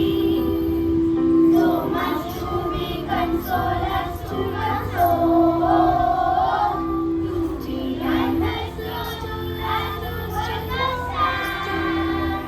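Children singing a hymn together over a steady instrumental accompaniment.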